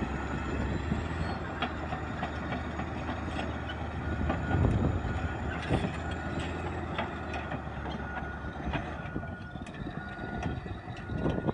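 Caterpillar D9R crawler dozer running and tracking over rock, its diesel engine running steadily under repeated clanks of the steel track links and crunching stones. In the second half its backup alarm beeps about twice a second.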